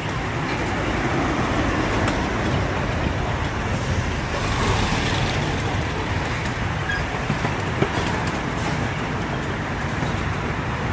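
Small amusement-park train rolling along narrow-gauge track: the steady rumble of the open cars' wheels on the rails, with a sharp click about eight seconds in.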